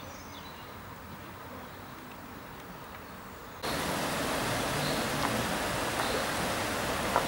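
Water rushing over a low weir in a canal: a steady, even rush of falling and churning water. It starts suddenly about three and a half seconds in and is much louder than the faint outdoor background before it.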